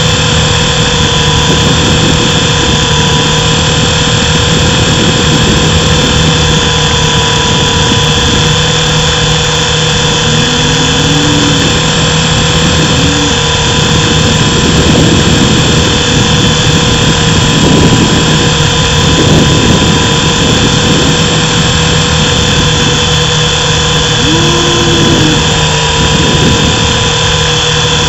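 Mini RC helicopter's electric motor and rotor whine, heard close from a camera riding on the helicopter: a loud, steady hum holding its pitch, with a few brief upward swells.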